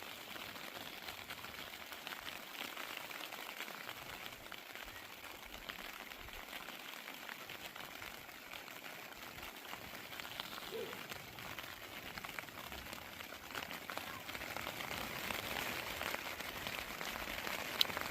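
Light rain falling, a steady hiss of many small drops ticking on surfaces. About two-thirds of the way through there is one short, faint low note.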